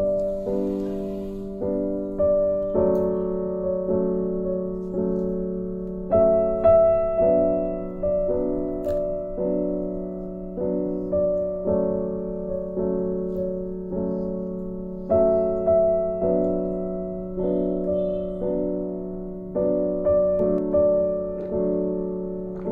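Background solo piano music: a slow, gentle piece of chords struck about once a second, each note ringing and fading.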